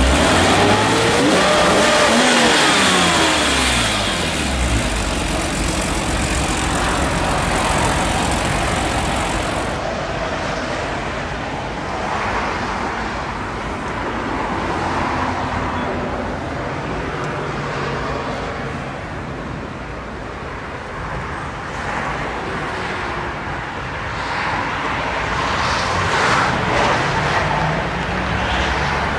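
BMW E34 M5's 3.8-litre straight-six engine revved once in the first few seconds, its pitch rising and falling back, then running steadily at idle.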